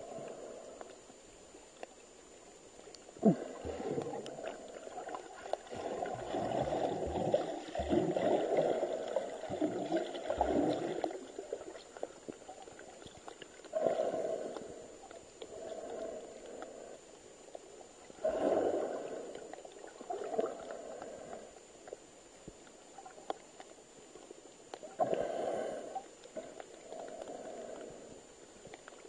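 Underwater recording of bubbling and water moving around the camera, coming in irregular bursts every few seconds with quieter stretches between. There is one sharp knock about three seconds in.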